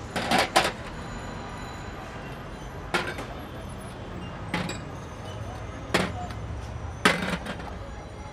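Ceramic and stainless-steel bowls being set down on a large metal pot lid, giving short clinks and clatters: a quick cluster at first, then single clinks every second or so. A steady low hum of street traffic runs underneath.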